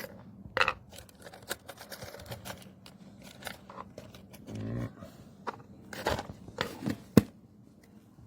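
Irregular sharp clicks, taps and crackles, loudest a little past half a second in and about seven seconds in, with a short low buzzing sound about four and a half seconds in.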